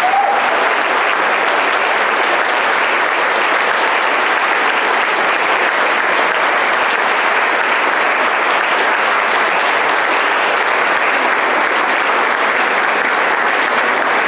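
Audience applauding in a steady, unbroken round of clapping.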